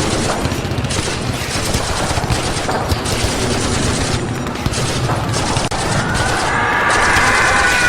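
World War II battle sound effect: dense, continuous gunfire, with volleys of rifle shots and machine-gun bursts overlapping with no pause. A high, wavering pitched sound joins in near the end.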